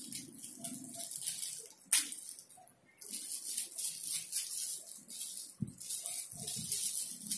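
Small clicks and rustles of metal-and-plastic Beyblade tops and parts being handled and fitted together by hand, with a sharp click about two seconds in and a low knock a little past halfway.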